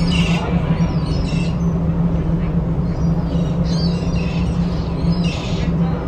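Gulls calling a few times in short cries over the steady low hum of a ferry's engine.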